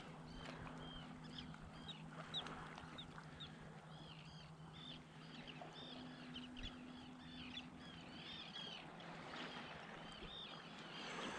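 A flock of birds calling faintly, many short chirping calls overlapping one another, over a low steady hum.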